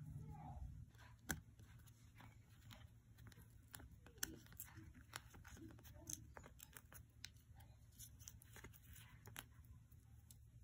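Near silence with faint, scattered clicks and taps of a paintbrush dabbing and mixing paint in a plastic palette; a low hum cuts off about a second in.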